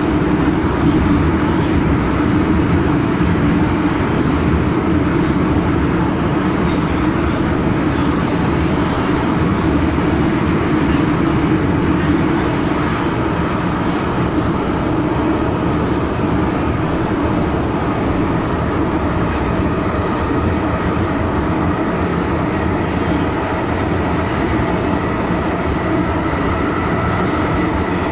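MTR M-Train electric multiple unit running at speed through a tunnel, heard from inside the car: a loud, steady rumble of wheels on the track and the car's running gear, with a faint steady whine that comes through more clearly near the end.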